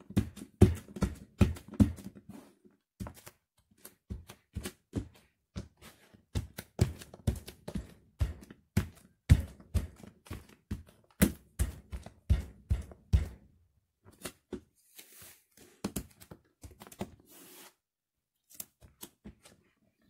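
Bare feet stomping on crumbled white bread on a tile floor: repeated thumps of the soles with the crunch of the bread pieces, about two or three steps a second. After about thirteen seconds the steps become sparser and softer, with some rustling of crumbs.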